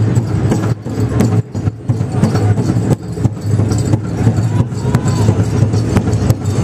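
Powwow drum group playing a fancy dance song: a large powwow drum struck together by several drummers, with singers' voices over it.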